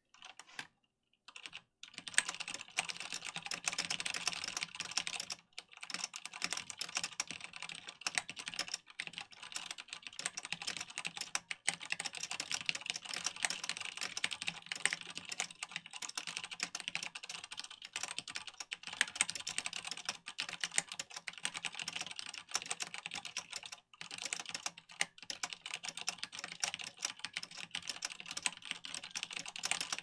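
Fast typing on a Deck Legend mechanical keyboard: dense, rapid key clacks that settle into a steady stream about two seconds in, with a couple of brief pauses.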